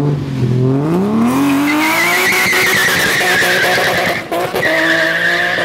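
Toyota 2JZ straight-six swapped into a BMW E36, revving up. About two seconds in, the rear tyres squeal in a long wavering screech over the running engine. The screech breaks off briefly near the end and then resumes.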